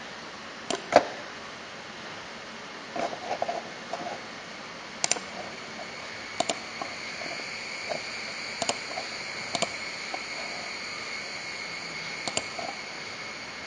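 Scattered single clicks of a computer mouse, one every second or two with a small cluster about three seconds in, over a steady background hiss. A faint, high, steady whine comes in about five seconds in.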